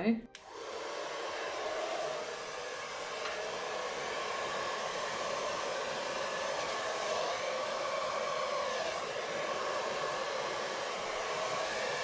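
A 2200-watt salon hair dryer is switched on about half a second in, then runs at a steady rush as it blows air across wet paint.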